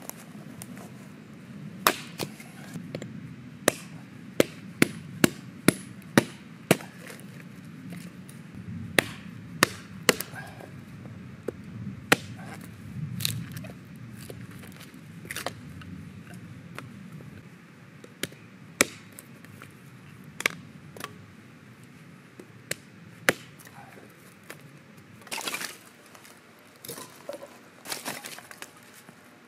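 Hatchet splitting a Japanese cedar (sugi) log on a chopping stump into kindling: a run of sharp wooden chops and cracks, coming quickly for the first half and then more spaced out. Near the end come short clattering rattles of split sticks being gathered up.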